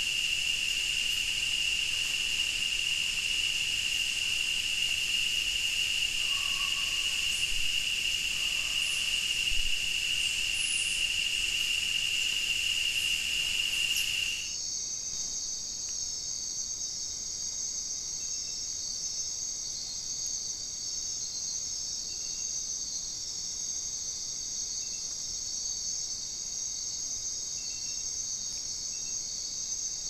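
Rainforest insect chorus. First comes a steady, high daytime drone of insects with one dominant pitch; about halfway through it cuts off abruptly and is replaced by a quieter, even higher night chorus of trilling insects.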